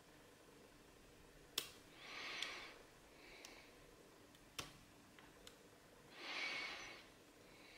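Faint metallic clicks of lock-picking tools working a Mul-T-Lock gear stick lock: two sharp clicks and a few lighter ticks. Two breaths out through the nose fall between them.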